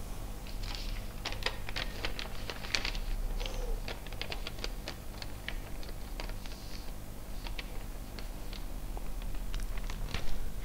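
Sheets of paper being handled and leafed through: a run of crisp crackles and ticks, thickest in the first few seconds and sparser later, with a sharper click near the end.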